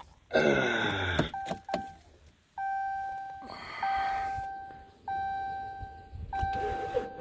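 A pickup truck's door-open warning chime dinging over and over, one clear tone about every 1¼ seconds, starting about a second in. Just before it comes a short, louder sound that falls in pitch.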